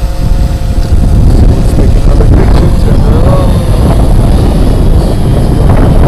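Strong wind buffeting the microphone: a loud, low, fluctuating rumble.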